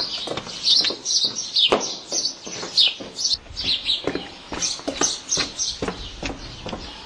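Small birds chirping over and over, with hard footsteps knocking on a cobblestone street underneath.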